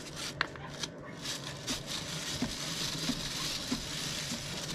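A chain brush scrubbing a motorcycle drive chain: a scratchy bristle noise with many small clicks from the chain links.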